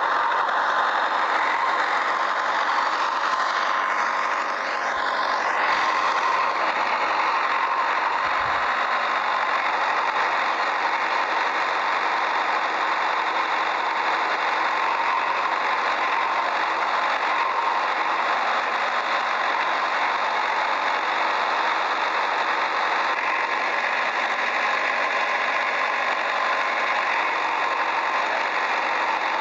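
Steady mechanical running noise of a machine or vehicle, with a constant high-pitched whine throughout and a slight change in pitch about five seconds in.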